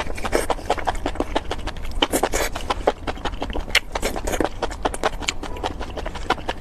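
Close-miked chewing and eating sounds: a rapid, irregular run of mouth clicks, several a second.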